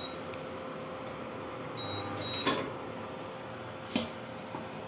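Prestige induction cooktop's control panel beeping as it is switched off: a short high beep at the start and two more about two seconds in, over a steady hum, with a couple of light knocks.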